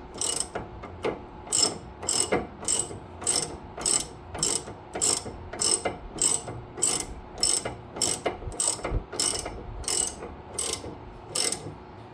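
Ratchet wrench with a 21 mm socket tightening a sway bar end link nut: a steady back-and-forth, clicking on each back-swing at a little under two strokes a second, stopping near the end.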